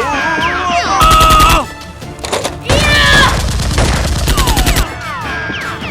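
Bursts of rapid automatic gunfire sound effects, a short burst about a second in and a longer one of about two seconds near the middle, over action music, with short falling whistles between them.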